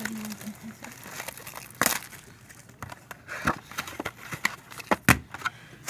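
A trading card box being opened and handled: scattered clicks, scrapes and light crinkles of cardboard and wrapper.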